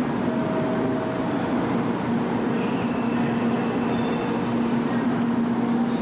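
Steady hum of a 700-series Shinkansen train standing at the platform, its onboard equipment running, with a low droning tone over an even whir.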